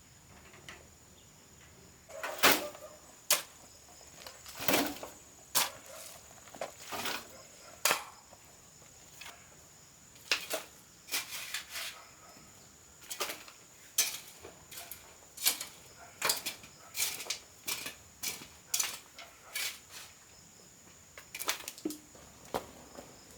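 Irregular sharp knocks and taps, a couple of dozen spread unevenly through, typical of wood being handled and struck during building work. A faint steady high whine runs behind them.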